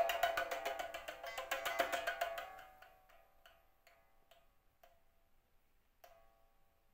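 Pipa played with rapid repeated plucking, about a dozen strokes a second, held around one note. It fades out about two and a half seconds in and gives way to a handful of soft, spaced single plucks that ring briefly.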